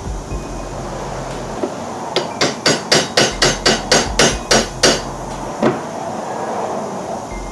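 A hammer strikes the new U-joint in a driveshaft yoke in a quick series of about a dozen blows, roughly four a second, as it is driven into place, followed by one more blow.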